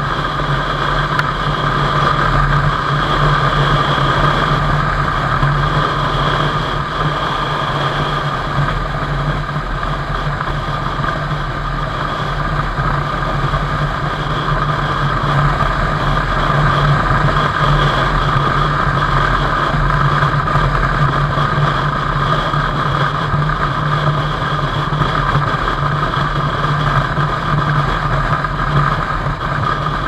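Suzuki Intruder VS700's V-twin engine running steadily, a constant drone with no clear change in speed.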